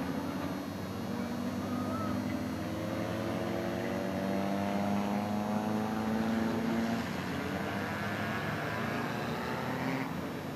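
Engines of several skid-plate race cars running on the track. One engine's pitch climbs steadily for several seconds as the car accelerates, then another's eases down, over a noisy background.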